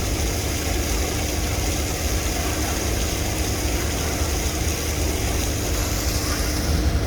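Large ship's diesel engine running steadily at low revs, a deep rumble with a faint steady hum above it. A high steady hiss drops away near the end.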